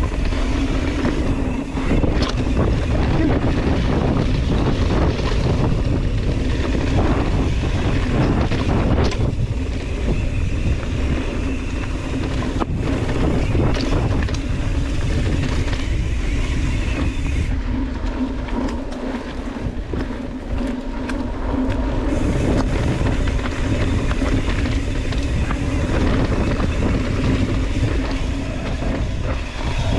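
Wind rushing over a ride-mounted camera microphone, with the rumble of mountain-bike tyres and the rattle of the bike over rocky trail, and sharp knocks here and there as it hits rocks. The wind hiss eases for a few seconds past the middle.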